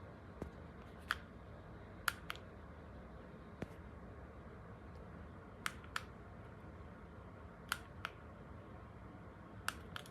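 Small plastic button clicks, mostly in quick pairs of press and release, every couple of seconds, from the lamp's remote control being worked, over a faint steady hiss.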